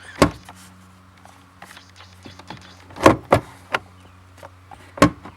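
Sharp knocks and clatter from parts and tools being handled during a fuel pump control module installation: one knock at the start, a quick cluster of three in the middle and one more near the end, over a faint steady low hum.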